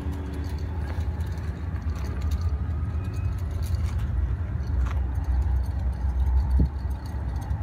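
Steady low rumble of wind buffeting the microphone over distant city traffic, with a single faint click about five seconds in.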